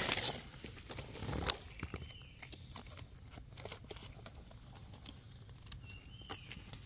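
Faint scattered clicks and rustling, like movement through dry forest-floor litter, with two short faint chirps: one about two seconds in and one near the end.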